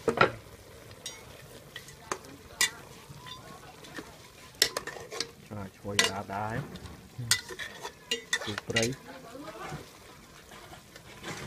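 Metal spoon stirring a stew in an aluminium pot, with irregular sharp clinks and scrapes of the spoon against the pot over a steady hiss from the cooking food.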